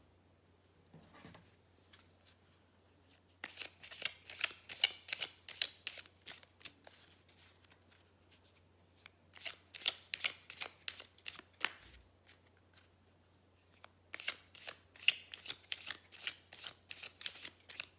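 A deck of cards shuffled by hand in three bouts of rapid papery flicking, each a few seconds long, with short pauses between.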